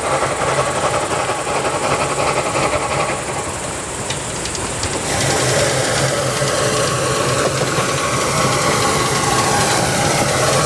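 Narrow-gauge steam locomotive IK No. 54 working toward the listener with its train: exhaust chuffing and steam hissing over the running noise of the train, getting louder from about halfway through.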